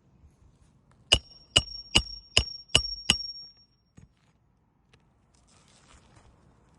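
Six quick metallic strikes, about two and a half a second, each leaving a high ringing tone that dies away after the last.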